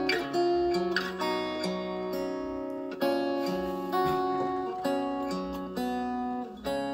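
Instrumental ballad accompaniment led by acoustic guitar, picked and strummed chords changing every second or so, with no voice over it: the intro of the backing track before the singing begins.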